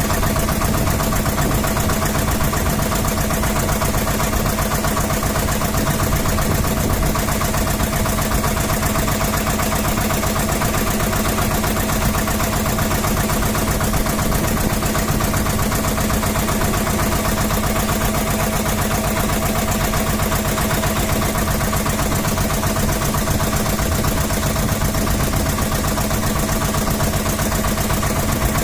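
Boat engine running steadily at constant speed under way, heard from on board, a continuous even drone with no change in pitch.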